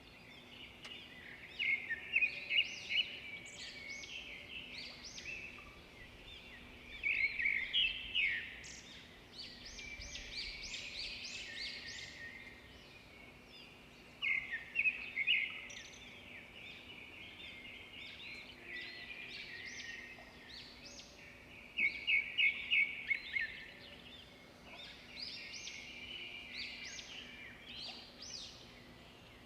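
Birds chirping and singing, with bursts of rapid, repeated chirps a few times.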